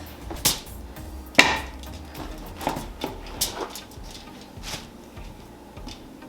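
Kitchen prep work: a handful of separate sharp knocks and taps of utensils on a hard, wood-like surface, the loudest about a second and a half in.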